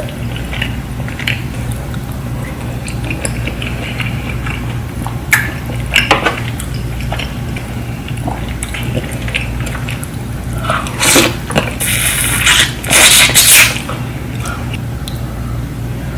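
Close-miked eating of a saucy seafood boil: wet, sticky sauce and chewing sounds with scattered clicks, over a steady low hum. About eleven seconds in come several loud rustling, hissing bursts.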